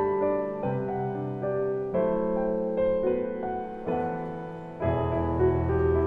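Background piano music, slow held chords; a fuller, deeper chord comes in near the end.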